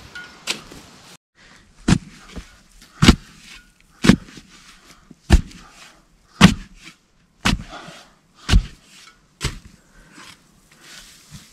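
A shovel blade chopping into sandy soil, eight sharp strikes at about one a second.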